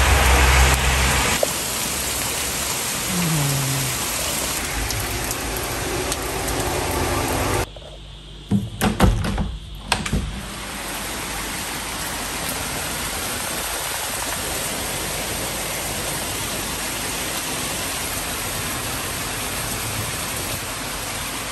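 Heavy rain pouring down with a steady hiss. About eight seconds in the rain sound drops away for a couple of seconds, with a few knocks as a window frame is handled, and then it returns slightly quieter.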